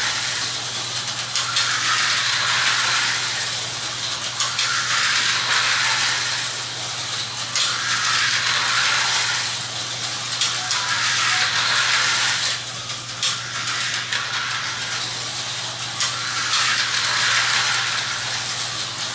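Tyco HO-scale slot cars lapping the track: the whir and rattle of their small electric motors and gears on the plastic track. The sound swells about every one and a half to two seconds as the cars come round.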